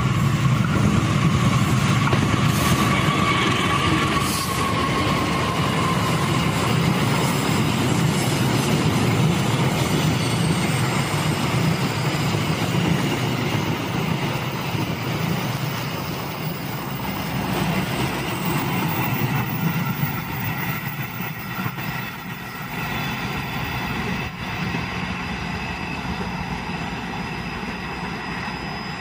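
Indonesian KAI diesel-electric locomotive and its passenger coaches passing close by on a tight curve: a heavy low engine and rail rumble, with thin squealing tones from the wheels against the curved rails. The rumble eases in the second half as the train draws away, and a high wheel squeal lingers.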